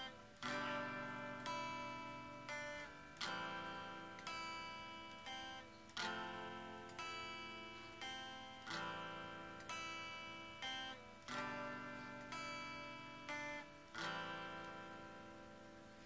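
Acoustic guitar playing a quiet song intro: chords plucked and left to ring and fade, a new chord about every two and a half seconds, with softer single notes picked in between.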